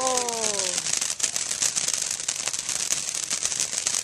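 Firework crackling steadily, a dense run of rapid small pops and sizzle. A voice calls out briefly in the first second.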